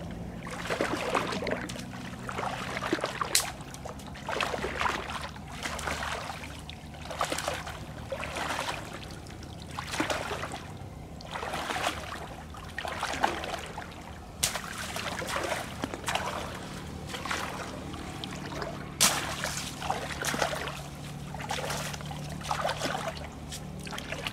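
A person wading through knee-deep floodwater, each stride a splashing swish of legs pushing through the water, about one every second or so, with a few sharp clicks between.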